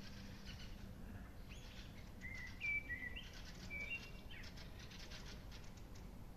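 Morning birdsong: one bird sings a short phrase of clear whistled notes, each held at a steady pitch and stepping up and down, about two to four seconds in. Rapid ticking trills come before and after it.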